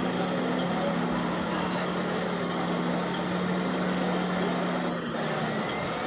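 Steady mechanical hum from a radio-controlled model truck or construction machine, heard over the dense background noise of a busy exhibition hall. A short hiss comes near the end.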